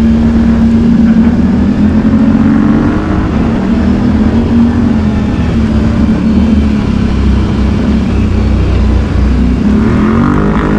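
ATV engine running at steady trail-riding throttle, with heavy low rumble. Its note rises a little a couple of seconds in, drops back and holds, then begins to climb again near the end.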